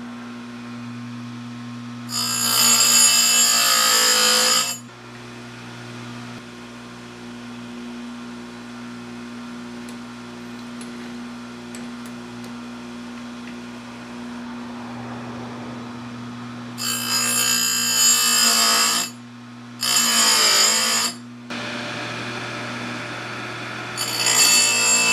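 Electric bench chainsaw-chain grinder sharpening the cutter teeth of a chain: the abrasive wheel grinds harshly against a tooth in four short passes, one about two seconds in and three close together near the end. A steady hum runs between them. The passes are light, taking a little metal off each tooth at a time so as not to burn it.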